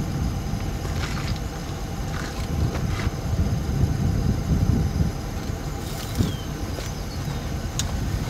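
Steady low rumble of a car idling, with a few faint clicks.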